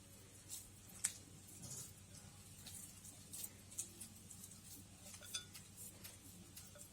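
Faint, scattered clicks and clinks of a utensil against a bowl as gofio, sugar and water are stirred together, over a low steady hum.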